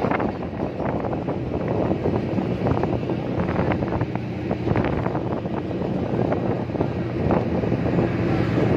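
A vehicle driving, heard from inside: steady engine and road rumble with wind buffeting the microphone through a mesh-grilled window, and a few small rattles.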